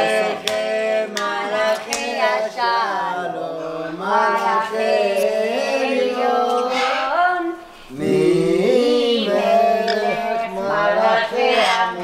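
People singing a song together at the dinner table, with one short break in the singing about two-thirds of the way through.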